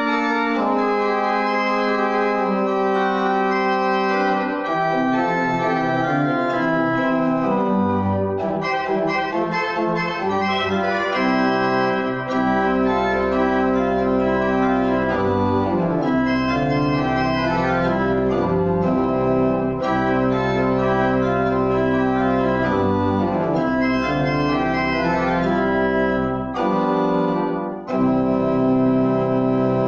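Church pipe organ playing the closing postlude in full sustained chords, with deep pedal notes joining about twelve seconds in. It breaks off briefly twice near the end before the final chord.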